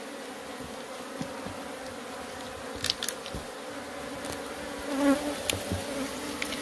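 A mass of Africanized honey bees buzzing steadily around an opened nest, a continuous hum, with a few small clicks of handling about three seconds in.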